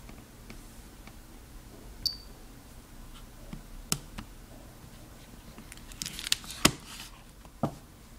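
Keys of a Casio FX-795P pocket computer being pressed: irregular clicks, with a quick run of presses about six to seven seconds in and one short high beep about two seconds in.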